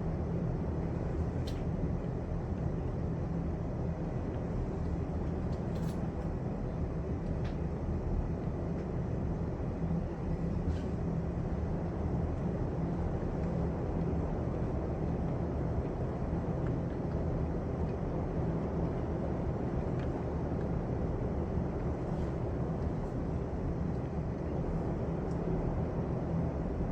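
Steady heavy rain, a dense, even hiss weighted toward the low end, with a few faint ticks of drops striking nearby.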